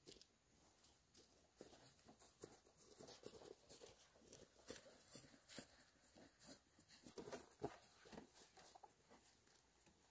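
Faint, irregular footsteps of rubber boots on a grassy dirt path, soft taps a few times a second.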